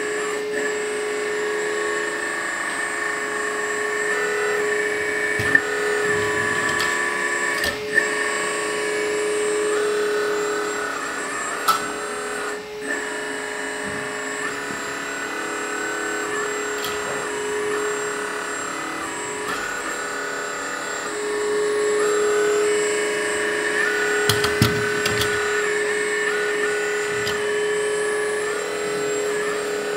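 Hydraulic pump of a 1/14-scale metal RC excavator (LESU Aoue ET26L) whining steadily, its tone stepping up and down as the boom and arm cylinders are worked, with a few sharp clicks.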